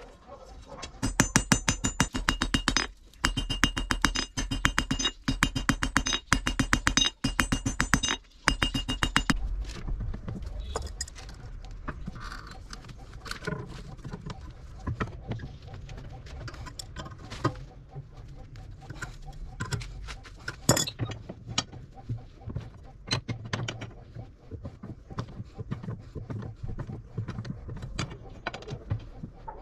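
Hand hammer striking a red-hot bar of car-spring steel on an anvil: rapid ringing blows in short runs that stop about nine seconds in. After that come scattered clinks and scrapes of the steel bar being worked in a bench vise.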